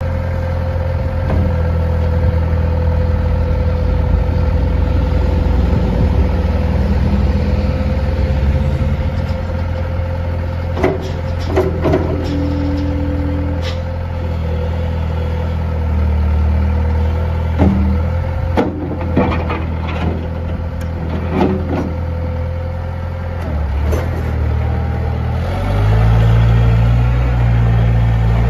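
Bobcat 853 skid steer's 58 HP Isuzu diesel engine running steadily with a thin steady whine over it. Scattered sharp knocks and clanks come through the middle. Near the end the engine speeds up and gets louder.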